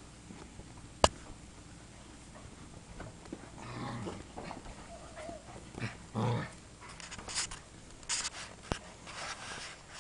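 Five-week-old Irish wolfhound puppies whining and scuffling as they play-attack at close range, with a sharp knock about a second in.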